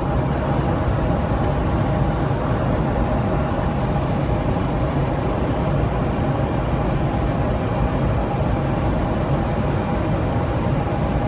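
Steady cockpit noise of an Embraer Legacy 500 business jet on final approach: a constant rush of airflow and engine noise, with a faint steady tone running through it.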